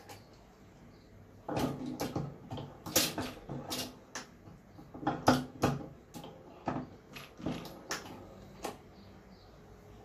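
An irregular run of about a dozen sharp metallic clicks and knocks from working a hand reloading press and handling a 9mm cartridge as the bullet is seated. The clicks start about one and a half seconds in and stop near the end.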